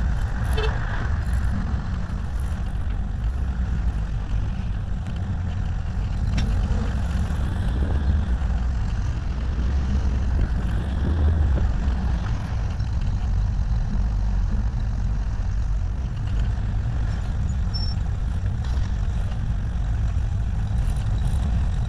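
Steady low rumble of an air-cooled VW Beetle on the move, with wind and road noise, heard from a camera taped to its front bonnet.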